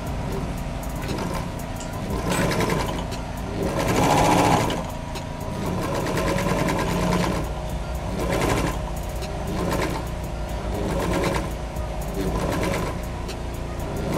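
Pegasus DC-1S overlock machine stitching and trimming fabric, test-running its newly replaced and reset upper and lower knives. The machine runs continuously with a rapid stitching rattle, and its sound swells and eases several times, loudest about four seconds in.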